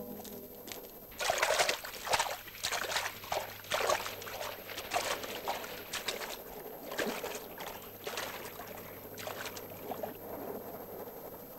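Sea water splashing in irregular bursts, about one a second, as a person slaps and paddles the water with their hands beside a floating board. The splashes grow weaker toward the end.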